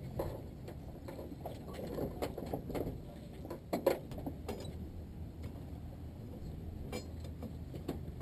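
Scattered knocks, clicks and rattles of people climbing into a parked Cessna 172's cabin and handling the door, the loudest a thump about four seconds in, over a steady low rumble.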